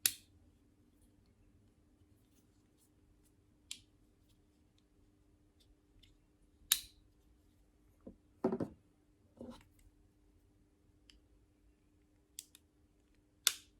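Metal clicks of multitool blades being flicked open and snapped shut, about seven sharp clicks at uneven intervals, with the loudest near the start, about halfway through and near the end. The blades are the one-hand-opening blades of a Victorinox multitool and a Leatherman Wave+, and their lock clicks are being compared.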